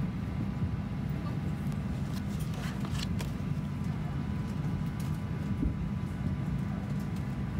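Steady low rumble of a Boeing 737-800 cabin on the ground, with a few faint rustles and clicks about three seconds in as the plastic safety card is handled and turned over.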